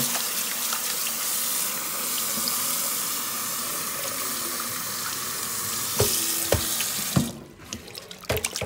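Kitchen faucet running water onto fish fillets in a plastic container in a stainless steel sink, rinsing them. The water cuts off about seven seconds in, with a few knocks around that point.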